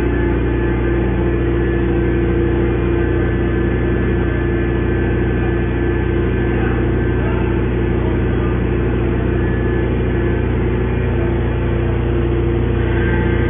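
Automatic metal baler's hydraulic power unit running with a steady hum that does not change.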